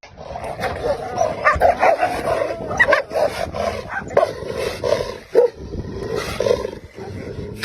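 Dogs barking in a rapid, overlapping run of short barks.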